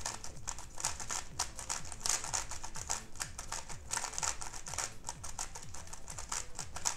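A GAN 11 M Pro 3x3 speedcube, already tensioned and lubricated, being turned fast: a continuous run of light plastic clicks as the layers snap through turns, with a few brief lulls.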